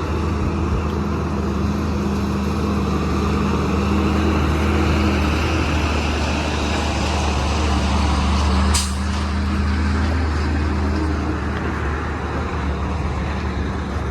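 Heavy truck's diesel engine running steadily with a deep, even hum, and a short sharp hiss of air about two-thirds of the way through.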